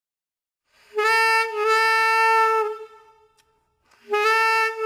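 Jazz saxophone playing long, steady held notes at one pitch. The first starts about a second in and is briefly re-tongued half a second later. After a pause, another note begins near the end.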